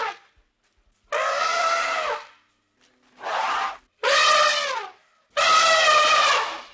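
An animal calling loudly four times: drawn-out, trumpet-like calls about a second each, with short pauses between.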